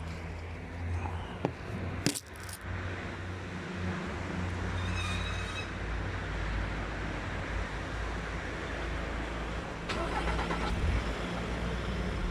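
Skoda Fabia engine cold-started: a short burst of starter cranking about two seconds in, then the engine catches and settles into a steady idle. There is no noise from the starter after it disengages, which the owner takes as the starter noise being fixed by greasing.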